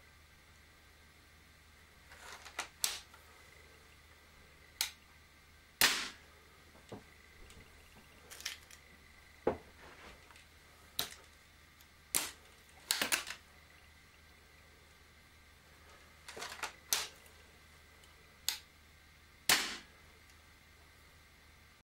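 A series of sharp metallic clicks and clacks, about a dozen spread unevenly, from handling a Weihrauch HW99 break-barrel air rifle: the barrel being broken open and snapped shut, a pellet loaded, and the gun shouldered.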